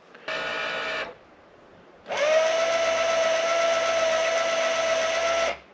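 Electric truck-camper jack motor running: a short buzz, then after a pause a longer steady whine that rises slightly as it starts and cuts off near the end.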